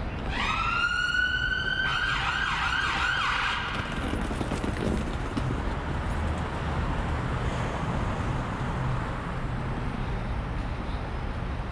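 Emergency vehicle siren: a tone rises and holds for about a second and a half, then switches to a fast warbling yelp for another second and a half before fading, over steady city road traffic.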